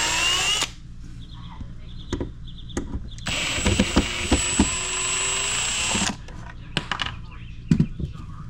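Power drill running in two bursts: a short one spinning up at the very start, then a steady run of about three seconds beginning about three seconds in, with knocks and clicks of handling between.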